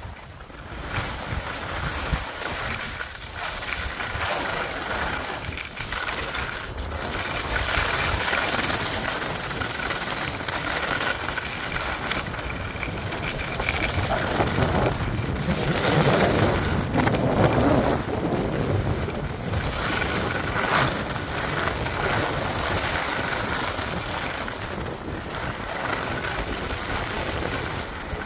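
Skis hissing and scraping over packed snow during a downhill run, with wind buffeting the microphone; the rush swells and is loudest about halfway through.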